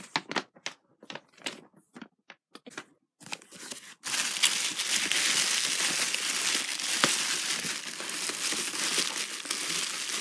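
Plastic bubble wrap crinkling and rustling as hands pull it out of a cardboard box. There are a few scattered crackles at first, then continuous crinkling from about four seconds in.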